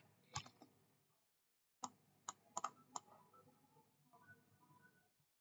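A handful of faint, scattered clicks from a computer keyboard and mouse, against near silence.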